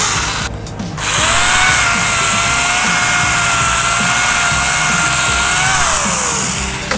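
Angle grinder fitted with a chainsaw bar-and-chain attachment, running with a steady high motor whine. It cuts out briefly about half a second in, spins back up a second in, then winds down near the end with its pitch falling.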